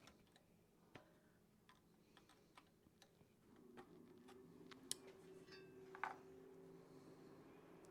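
Faint, scattered small metal clicks and taps of pliers working a new cotter pin into a connecting-rod bolt, the two loudest about five and six seconds in. A faint steady hum comes in about halfway.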